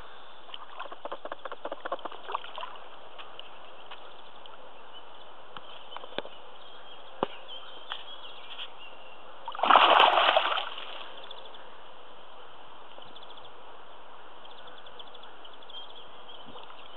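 Spawning carp splashing in shallow water among reeds: one loud splash lasting about a second near the middle, with a run of smaller splashes and ticks in the first few seconds.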